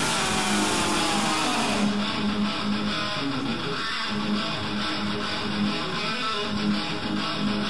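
Electric guitar playing alone in a rock recording. A ringing chord fades over the first couple of seconds, then a low note is picked again and again in a slow, even pulse.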